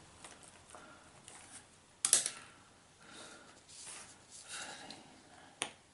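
Quiet desk handling sounds: a pen scratching briefly on paper, a sharp knock about two seconds in, faint rustling, and a short sharp click near the end.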